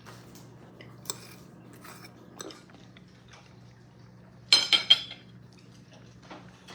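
Dishes and cutlery clinking: a few light clicks, then a quick run of three or four sharp clinks about four and a half seconds in, over a steady low hum.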